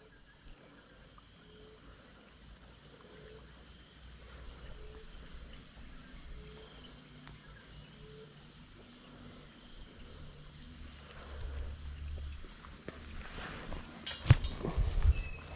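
Insects in the riverside vegetation buzzing in a steady high-pitched drone. About fourteen seconds in, a run of sharp knocks and rustling from gear being handled near the microphone, the loudest sounds here.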